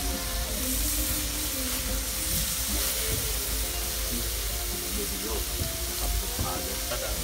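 Pork pieces sizzling on a hot iron teppanyaki griddle plate as they are turned with metal tongs: a steady frying hiss over a low, even rumble.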